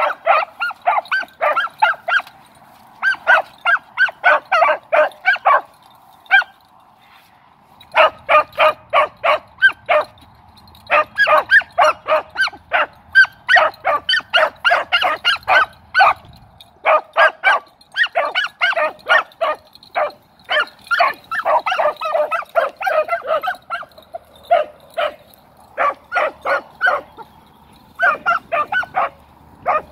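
Beagles giving tongue on a rabbit's trail: quick runs of short, high-pitched hound barks, about three or four a second, broken by brief pauses.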